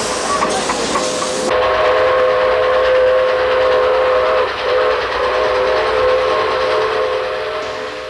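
Train whistle blowing a long, steady chord of several tones, with a brief dip about halfway. It is preceded by a loud rush of steam-like hiss that stops about a second and a half in.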